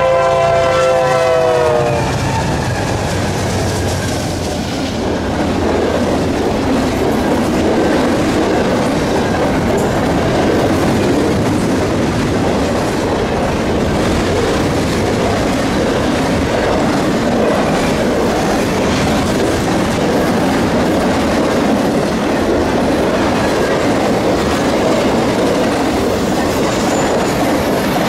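BNSF freight locomotives passing with their horn sounding: the horn's pitch drops as the lead units go by, and it stops about two seconds in. Then comes the steady noise of the locomotives and a long string of double-stack intermodal well cars running by on the rails.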